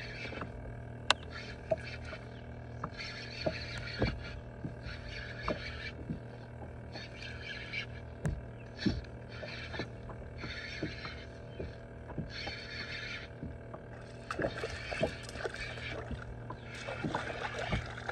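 Spinning reel cranked in repeated short bursts, each a whirring retrieve of half a second to a second, with scattered clicks and knocks over a steady low hum.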